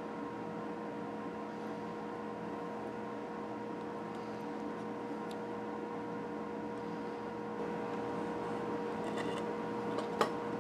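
Steady workshop hum made of a few fixed tones over a light hiss. Near the end comes faint scratching as a digital caliper's jaw scribes a line on a wooden ukulele neck blank, then one sharp click.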